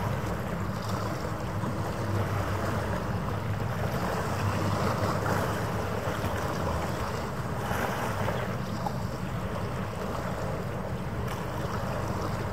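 Steady wind noise on the microphone over a continuous low rumble of harbour ambience, with no distinct events.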